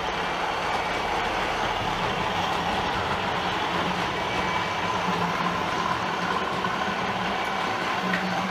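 DCC sound from OO gauge model diesel locomotives: a diesel engine running steadily through the models' small speakers, with a freight train of model wagons rolling past on the track.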